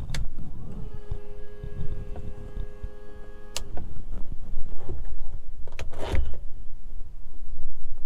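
A small electric motor or pump in the aircraft whines steadily, several tones at once, for about three seconds and cuts off with a sharp click, with switch clicks as the panel is set up for engine start. A short noisy thump follows about six seconds in, over a low rumbling background.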